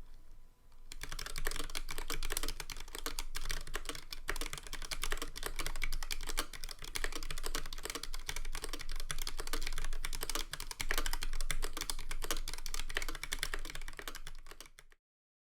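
Fast, continuous typing on a YMDK Melody96 mechanical keyboard with C3 Equalz Tangerine linear switches and PBT keycaps. The keystrokes clatter rapidly, starting about a second in and stopping abruptly shortly before the end.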